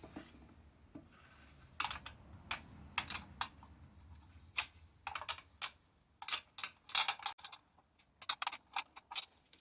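Small metal hand tools clicking and clinking as they are handled: irregular sharp clicks, singly and in quick clusters, starting about two seconds in.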